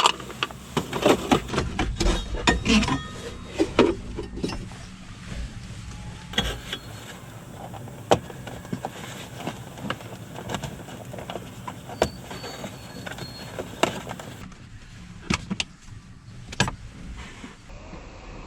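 Irregular clicks, clinks and knocks of hand tools and parts being handled while the dash is taken apart to reach the cabin air filter. They are busiest in the first few seconds and scattered after that.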